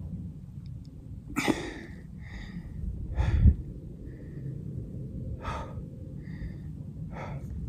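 A man breathing hard: about six short, heavy breaths and gasps, roughly one a second, the loudest about three seconds in.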